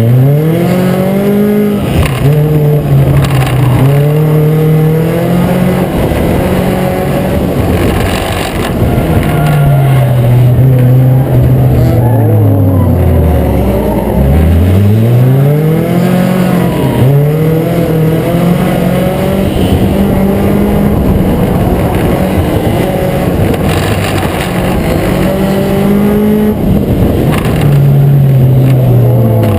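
Acura Integra race car's four-cylinder engine under racing load, climbing in pitch as it accelerates and falling off as it lifts, over and over every several seconds.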